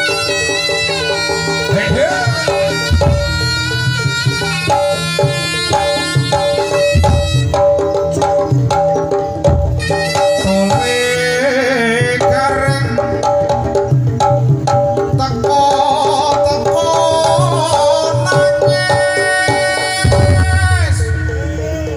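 Live Javanese jaranan accompaniment: drums playing a busy rhythm under a held, reedy melody line that wavers and bends in pitch.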